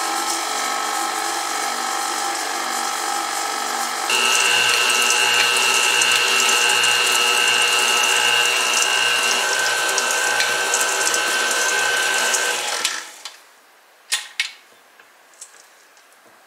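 Electric stand mixer running, its wire whisk beating a thick oat, peanut butter and honey granola mixture in a stainless steel bowl. It steps up louder with a high whine about four seconds in and shuts off about thirteen seconds in, followed by a few light clicks.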